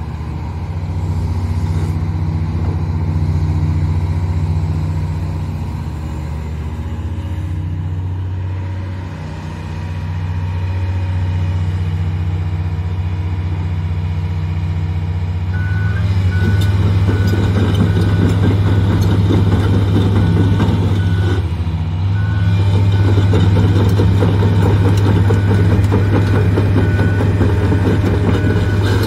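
John Deere 470G LC excavator's Isuzu 6UZ1X diesel engine running steadily under hydraulic load. About sixteen seconds in it grows louder as the machine travels, with a rattle from the steel tracks and a travel alarm beeping at a regular pace.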